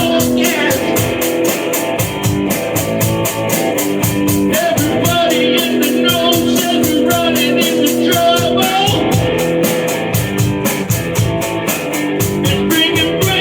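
Rock song with a steady drum beat, quick cymbal strokes and guitar, in a passage without sung words.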